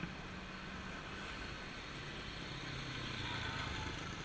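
A motor vehicle's engine running steadily, its low hum dropping a little in pitch about two seconds in.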